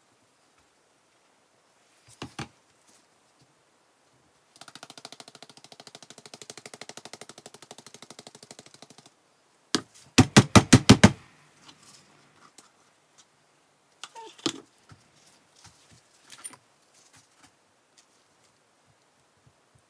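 Soap-making tools and a wooden loaf mold being handled at the bench: a few seconds of fast, even buzzing rattle, then a quick run of about seven hard knocks, the loudest sound, with scattered lighter knocks and clicks around them.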